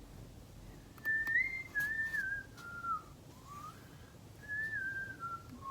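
A person whistling a tune: a string of pure, gliding notes, beginning about a second in, with short gaps between phrases.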